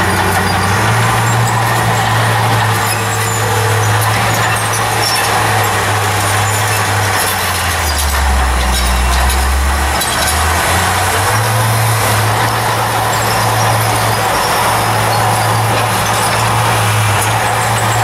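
Small crawler bulldozer's diesel engine running steadily under work, with a low hum and a clattering, noisy layer above it. About halfway through the engine note drops lower for roughly two seconds, then comes back up.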